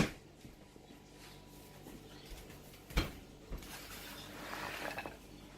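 Quiet kitchen with a sharp click at the start and a light knock about three seconds in, from cookware handled on the stove.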